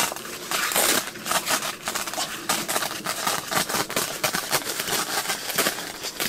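Stiff tent fabric rustling and crackling as the flap over the stove-jack opening is pulled back and rolled up by hand.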